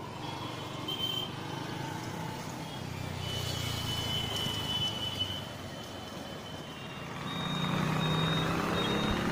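Street traffic with motorcycles and other vehicles running by. A high-pitched tone sounds for a couple of seconds midway. Near the end a nearby engine grows louder, with short high beeps repeating over it.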